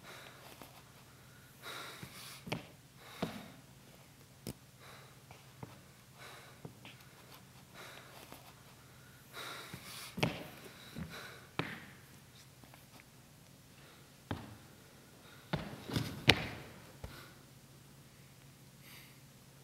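Scattered knocks, thuds and rustles, as of someone moving and handling things, over a faint steady low hum; the loudest come about ten seconds in and in a cluster near the end.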